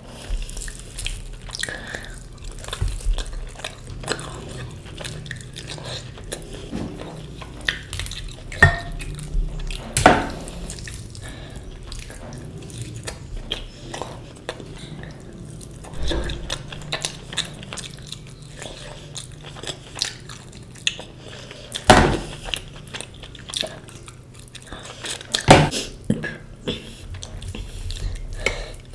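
Close-up eating sounds: chewing with many small wet clicks and smacks, and a few sharper knocks against dishes, the loudest about a third of the way in and twice near the end.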